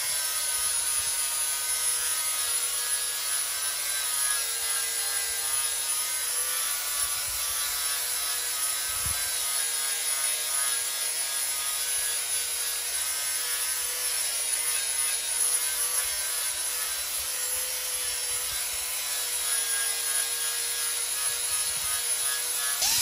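Electric angle grinder with a sanding disc running at a steady, constant-pitch whine as it sands surface rust and peeled paint off a cast-iron engine water hopper.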